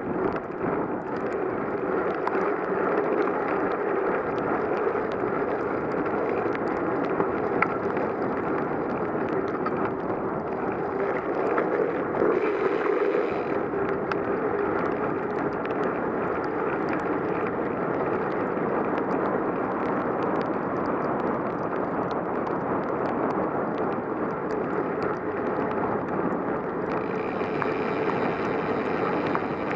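Steady noise of a bicycle being ridden on wet roads in the rain: a continuous rushing hiss with no breaks, a little brighter near the end.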